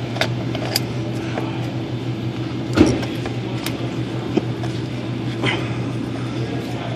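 A strap wrench being worked against a stubborn oil filter, giving scattered clicks and knocks, one sharper knock a little under 3 s in. Under it runs a steady low hum.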